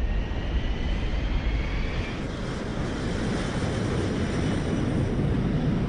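Boeing 747's four jet engines at takeoff power: a steady roar with a whine rising over the first two seconds, as the airliner rolls down the runway and climbs out.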